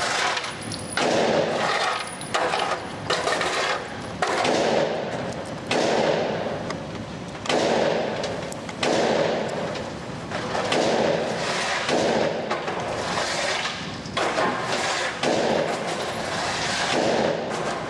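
Gunfire echoing in an indoor shooting range: a steady string of shots about one to one and a half seconds apart, each with a long echoing tail.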